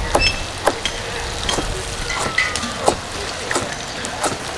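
Green bell peppers being torn apart by hand: irregular crisp snaps and crackles, one to two a second.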